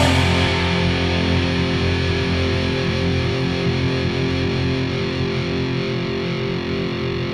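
Rock music: distorted electric guitar holding sustained chords that ring on and fade slowly.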